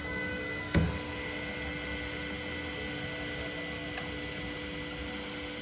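Steady machine hum with several fixed tones, broken by a single sharp knock about a second in and a faint click later on.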